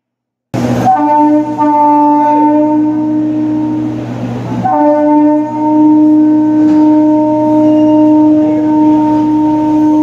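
Train horn sounding two long, steady blasts, the first from about a second in, the second starting about halfway through, over the steady low hum of the moving train.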